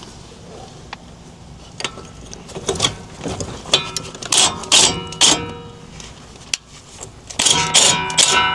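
Steel hand tools and parts clinking and knocking during wheel hub work, several sharp strikes that ring briefly, in two clusters near the middle and toward the end.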